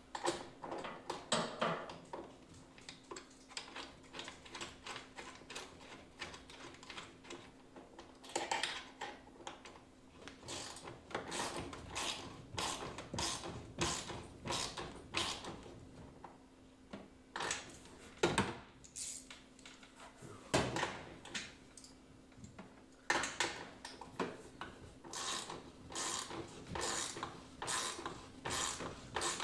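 Socket ratchet wrench clicking in quick bursts as bolts are tightened, with pauses between strokes, over a faint steady hum.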